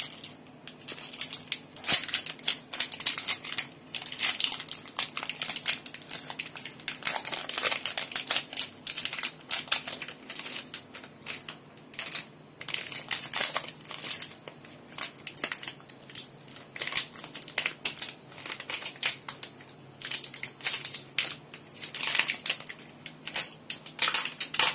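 Plastic Oreo biscuit wrapper crinkling and crackling as it is peeled off a frozen ice-cream bar, in irregular runs of crackles.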